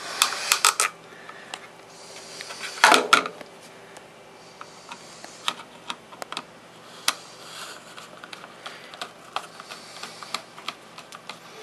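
Hand screwdriver turning an outlet's mounting screw into a plastic electrical box: irregular light clicks and ticks, with a louder burst of clicks at the start and again about three seconds in.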